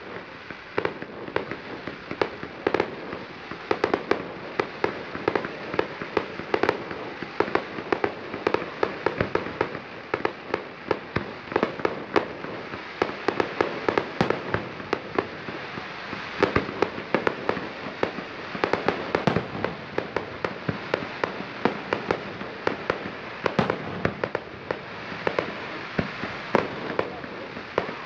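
Fireworks display: many sharp bangs and crackles from bursting shells in quick succession, several a second.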